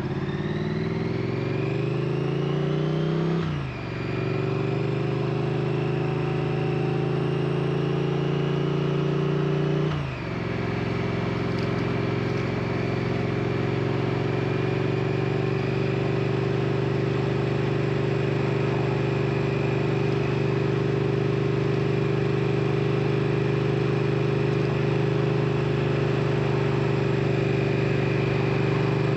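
2022 Triumph Street Twin's 900 cc parallel-twin engine under way. It climbs in pitch, upshifts about three and a half seconds in, pulls again and upshifts again about ten seconds in, then runs at a steady cruise.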